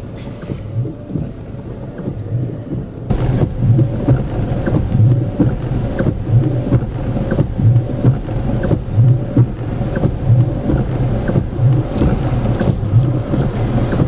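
Rain on a car's windscreen and roof heard from inside the car, with a low pulse about every two-thirds of a second and the windscreen wiper sweeping; it grows louder and fuller about three seconds in.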